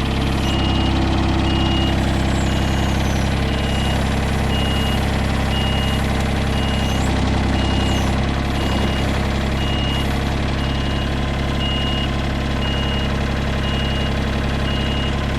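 Engine idling steadily, with a regular high-pitched beep repeating over it.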